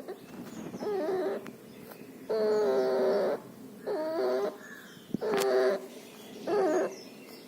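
A puppy sick with pneumonia and distemper making a string of five pitched, whimpering cries, each half a second to a second long, with the pitch bending within each.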